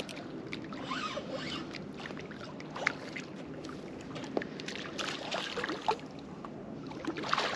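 Water sloshing below a fishing pier, with scattered small clicks and knocks.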